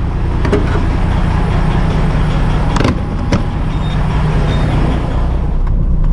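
Semi truck's diesel engine running steadily, with a few sharp clicks and knocks about three seconds in; near the end the low rumble grows louder and steadier.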